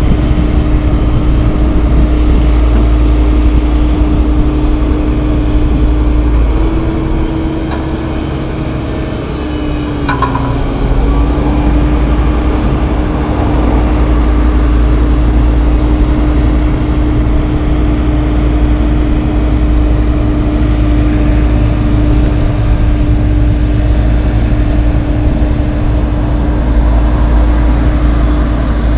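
Diesel engines of paving equipment running steadily, a low rumble with a constant hum over it. The rumble eases briefly about a third of the way in.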